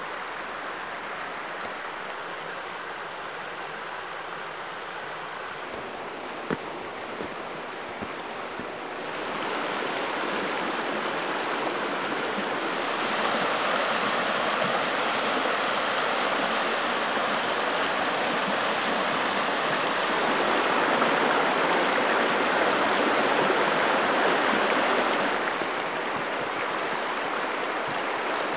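River water rushing over rocks and shallow rapids, a steady rushing. It grows louder about a third of the way in and drops back somewhat near the end.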